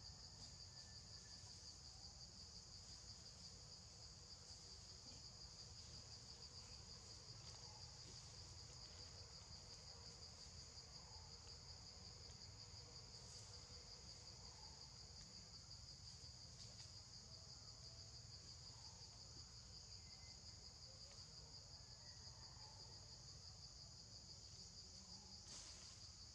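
Faint, steady high-pitched trilling of insects, with a low background rumble underneath.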